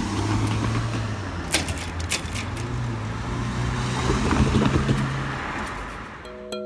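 Road traffic: a motor vehicle's engine runs steadily close by, with a few sharp clicks about one and a half to two and a half seconds in. Music starts just before the end.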